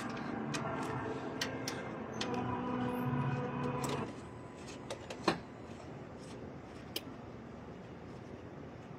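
Faint background voices for the first few seconds, then low steady room noise broken by a few sharp clicks or taps.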